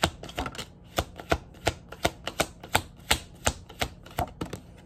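Tarot cards being shuffled overhand: packets of cards tapping down onto the held deck in a steady rhythm of about three sharp taps a second.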